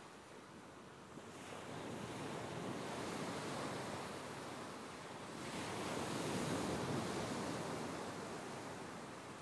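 Ocean surf washing in: a rushing hiss that swells twice, the second wave louder, each building and then easing off.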